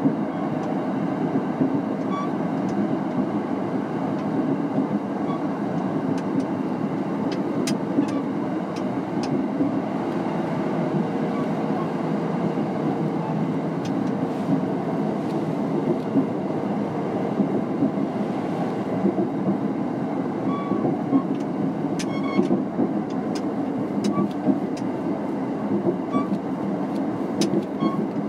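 Kintetsu 3220 series electric train running at a steady speed, heard from inside the car: a constant low rumble of wheels and running gear, with scattered light clicks.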